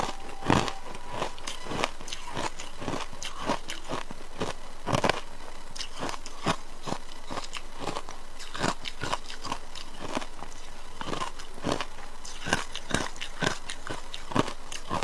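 Frozen ice, including matcha ice, being bitten and crunched between the teeth, giving sharp, irregular crunches about two a second.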